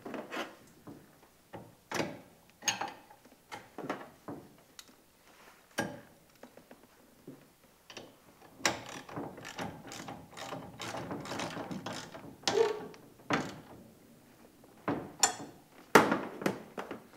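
Ratchet wrench clicking in quick runs, with sharp metal clinks of wrenches and washers, as the 3/8-inch bolts of a mud motor's handle mount are tightened; the longest run of clicking comes in the middle.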